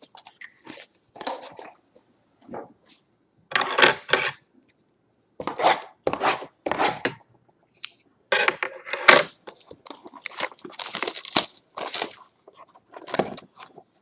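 Cardboard and wrapping of a trading-card hobby box being torn open and handled: irregular bursts of tearing and crinkling, some short, some lasting a second or more.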